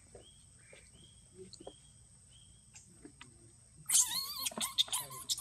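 Macaque calls: a few soft short chirps, then, about four seconds in, a burst of loud shrill squeals that rise and fall in pitch.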